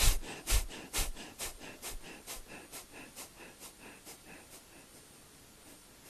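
A man doing rapid pranayama breathing: sharp, forceful breaths through the nose at about two a second, growing steadily softer and almost dying away near the end.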